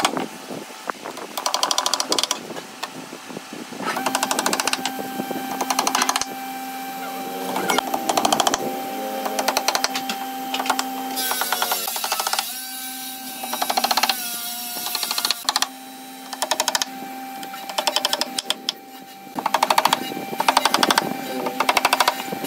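Claw hammer tapping small nails through a thin sheet into a wooden slab, in quick runs of light taps separated by short pauses. A steady hum runs underneath through much of the middle.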